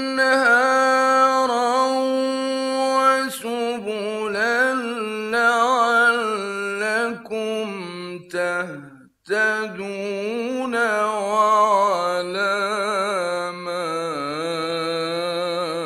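A male Quran reciter chanting in the melodic murattal/mujawwad style, in long held notes with slow ornamented pitch turns. There is a brief pause for breath about nine seconds in.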